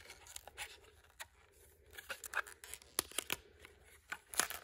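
Aluminum Shaper Sheet foil crinkling and crackling as it is peeled off a two-part epoxy resin casting. The resin is still soft, not fully cured, and sticks in places. The crackles come irregularly and are busiest past the middle and again near the end.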